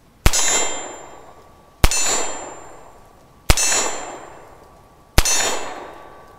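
Four .357 Magnum shots from a Ruger Security Six revolver fired double action, about one and a half seconds apart. Each shot is followed at once by the clang of a hit steel target ringing and fading over about a second.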